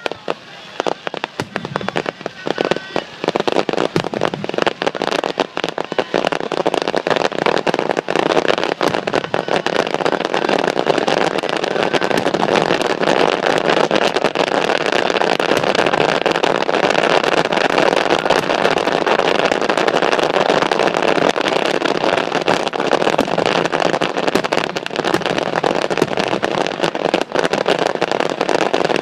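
Fireworks display going off: scattered bangs and crackling at first, thickening about four seconds in into a continuous dense crackle of many bursts at once.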